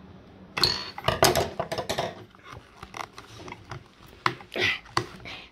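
Hard plastic toy packaging being handled and pried apart: a quick run of clicks and knocks about a second in, then scattered clicks and a brief scrape.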